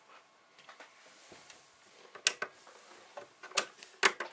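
Small screws and a screwdriver clicking and tapping against the metal fan bracket and chassis of a Mac Pro as the fan module's screws are put back in: a few light ticks, then three sharp clicks in the second half.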